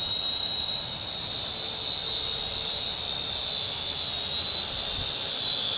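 Syma X5C toy quadcopter hovering, its small motors and propellers making a steady high-pitched whine that wavers slightly in pitch as the throttle is nudged.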